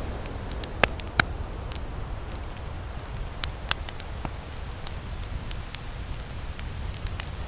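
Wood campfire crackling, with scattered sharp pops and snaps, the two loudest about a second in, over a steady low rumble.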